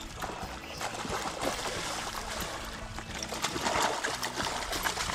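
A hooked fish thrashing and splashing at the water surface, the splashing growing louder over the last second or two, under background music.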